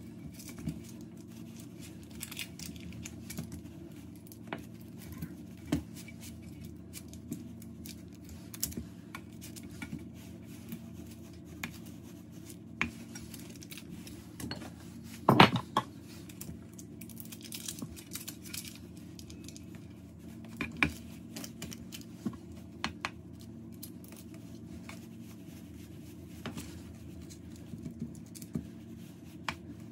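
A silicone spatula and fingers pressing a soft sweet mixture flat in a parchment-lined metal baking tray: scattered light scrapes, taps and paper rustles, with one louder knock against the tray about halfway through, over a steady low hum.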